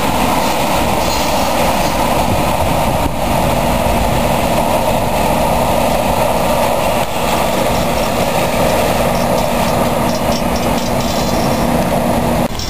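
Freight train rolling past, a loud, steady rumble of wheels and cars on the rails.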